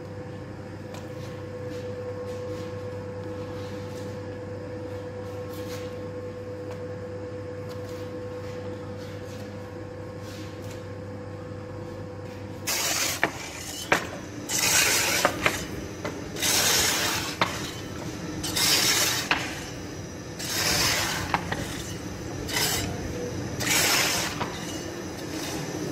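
Large electric dough mixer running with a steady hum. About halfway through it gives way to loud bursts of harsh, hissing noise about every two seconds.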